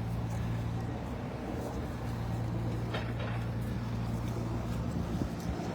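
Steady low machinery hum from the adjacent data center site, a constant droning tone with overtones, at a level considered damaging to children's hearing.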